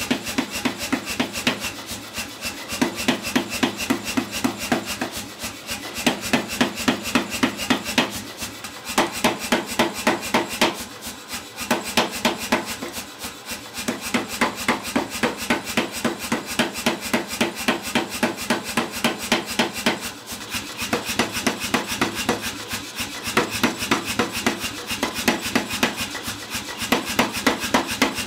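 Power hammer pounding a hot steel bar in rapid, evenly spaced blows, drawing it square. The blows come in runs with brief pauses every few seconds as the bar is turned and repositioned, over a steady low hum from the machine.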